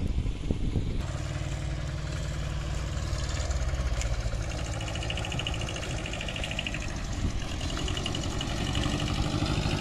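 Small four-wheel farm tractor's engine running steadily while pulling a trailer, growing louder toward the end as it approaches.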